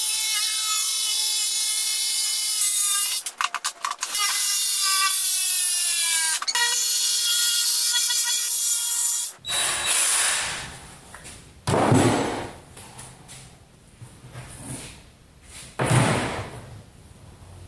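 Jigsaw cutting through hardboard marker board, its motor running hard with the pitch sagging and recovering, stopping briefly twice. About nine seconds in it shuts off, followed by a few dull thumps and rustles.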